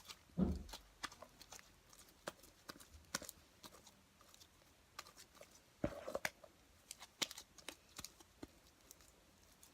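Thick homemade slime being handled and pulled off the hands: faint, scattered sticky clicks and pops, with a soft thump about half a second in.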